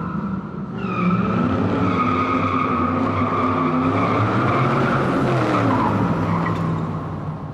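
Car tyres squealing steadily in a burnout over a revving engine, the engine pitch climbing about a second in and dropping again later. The sound cuts off abruptly at the end.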